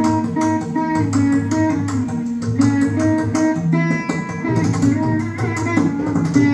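Saraswati veena playing a Carnatic melody in plucked notes, accompanied by a steady run of mridangam strokes.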